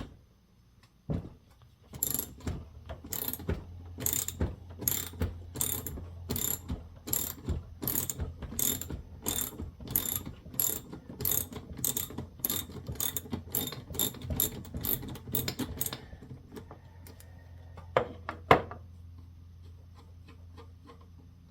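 Socket ratchet wrench clicking steadily, about two clicks a second, as a nut is backed off a starter-motor terminal. Near the end come two sharp knocks.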